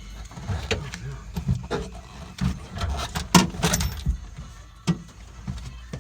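Irregular clicks and knocks of a hand tool working on the door-lock bolts of a car door, the loudest knock about three and a half seconds in.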